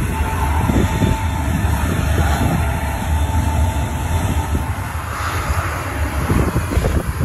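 Four turbofan engines of a C-17 Globemaster III running close by, a loud steady low rumble with a faint high whine that fades a couple of seconds in.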